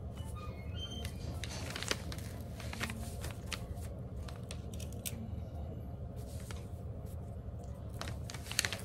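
Rustling of fabric and a paper-like pattern sheet being smoothed and pinned down by hand, with small scattered clicks of the pins, over a steady low hum.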